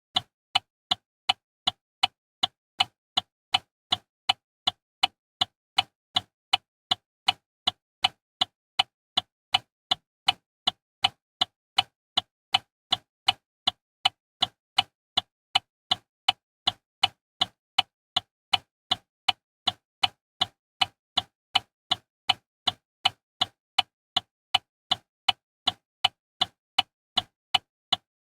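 Opel Astra turn-signal indicator ticking: sharp clicks at a steady, even pace, about two to three a second.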